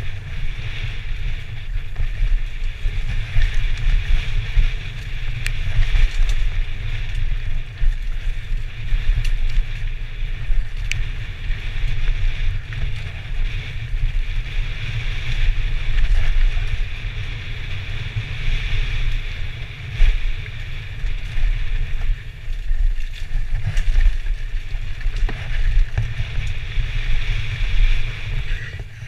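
Wind buffeting a helmet-mounted camera's microphone during a fast downhill mountain-bike descent on a dirt trail, a constant deep rushing rumble. Frequent short knocks and rattles come from the bike over bumps.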